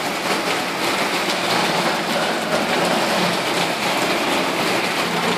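Steady hiss of water, rain or running floodwater, with no break or change.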